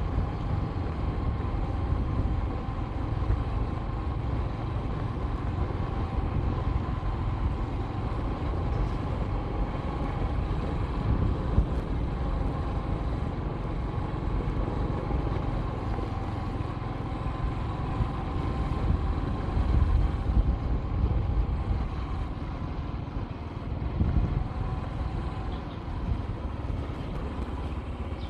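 A vehicle driving along a road: a steady engine and road-noise rumble with a faint steady whine.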